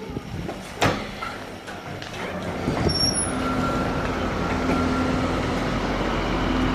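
A single sharp knock about a second in, then a motor vehicle's engine running with a steady low rumble and hum that comes up about halfway through and holds.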